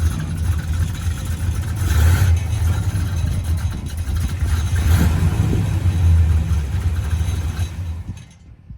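Car engine running steadily with a deep low hum and some rise and fall in revs, then dropping away suddenly near the end.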